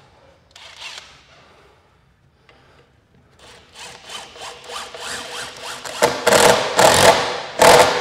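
Wooden mantel beam rubbing and scraping against its mounts as it is worked into place: a run of quick scraping strokes that starts about three and a half seconds in and grows louder, with its loudest strokes near the end.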